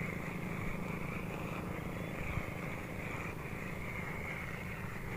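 Steady low outdoor rumble with a constant faint hiss above it; no single event stands out.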